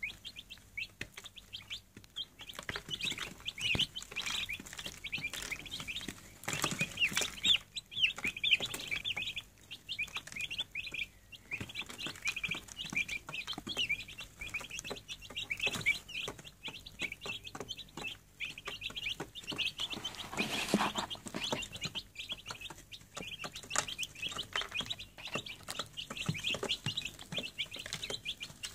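A brood of day-old broiler chicks and turkey poults peeping continuously, many high, rapid chirps overlapping. A couple of brief louder broad noises break in, about a quarter of the way in and again about two-thirds in.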